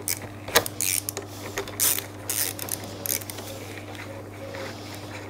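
Irregular clicks and scraping of a hand tool working a bolt on a motorcycle's footpeg bracket, with gloved hands rustling, loudest in the first three seconds. A steady low hum runs underneath.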